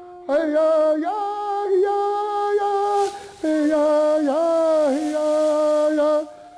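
A man singing a chant-like song into a microphone in long, high held notes, a few dipping and rising again, with a short break in the middle. A steady held flute note sounds beneath the voice.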